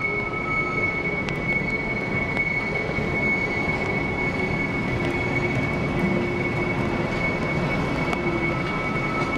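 Railroad passenger coaches and a caboose rolling slowly past on jointed track, a steady rumble of wheels on rail with a thin, steady high squeal of the wheels running through it.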